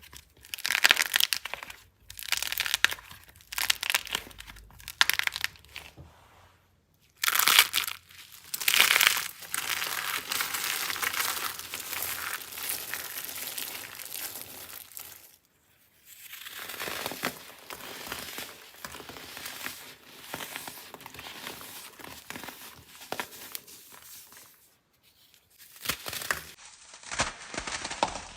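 Dry, crumbly soap being crushed, a run of crackling, crunching bursts with a few short pauses between them.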